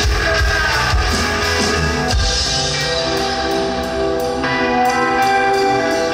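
Rock band playing live without vocals. Drums, bass and guitar play together for about two seconds, then the low end and drum hits drop away, leaving held guitar notes, before the full band kicks back in near the end.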